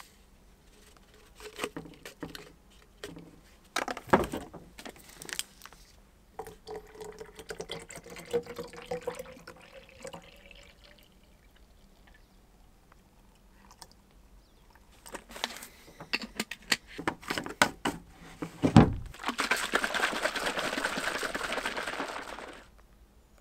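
Water poured from a plastic bottle into a wide-mouth drink bottle, the pitch rising slightly as it fills, amid clicks of handling the bottles and the drink-mix packet. Near the end, after a thump, the capped bottle is shaken for a few seconds, the liquid sloshing to mix in the electrolyte powder.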